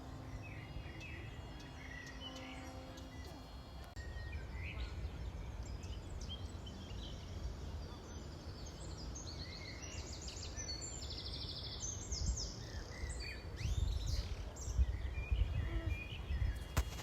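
Outdoor ambience: a low rumble with small birds chirping and trilling over it, the rumble growing louder and gustier near the end. A few steady pitched tones sound in the first few seconds.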